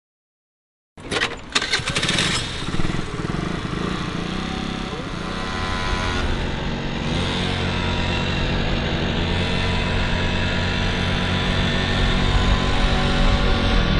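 A motor scooter's small engine: sharp clattering knocks as it starts about a second in, then running steadily.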